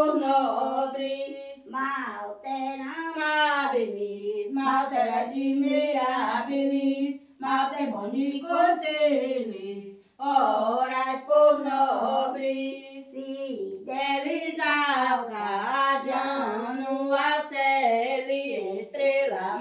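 Unaccompanied singing of a Portuguese folk-Catholic devotional hymn, a woman's voice to the fore. It goes in slow, drawn-out sung lines with short breaks between phrases.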